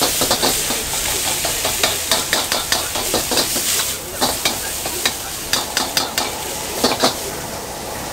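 Noodles and greens stir-frying in a wok: a steady sizzle, with a metal ladle repeatedly clanking and scraping against the wok as the food is tossed.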